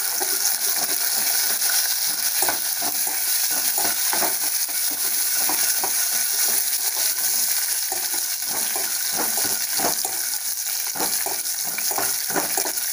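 Hot oil sizzling as a tempering of cumin, mustard seeds, urad dal, dried red chillies and crushed garlic fries in a stainless steel pot. A metal spatula scrapes and clinks against the pot as the tempering is stirred.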